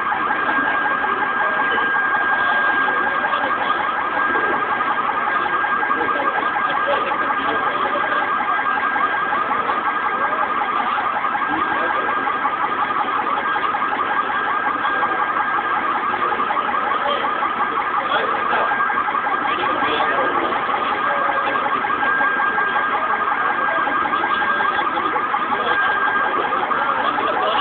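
Car alarm sounding without a break: a fast, continuous warble with a steady high tone over it.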